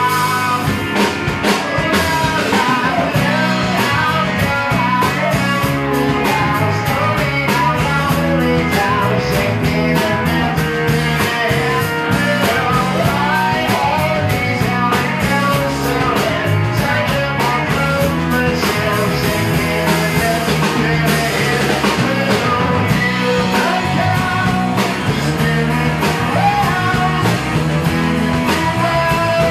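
Live rock band playing electric guitars and a drum kit, with a vocalist singing.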